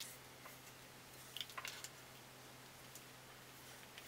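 Near silence: room tone with a faint steady low hum and a few faint clicks about a second and a half in.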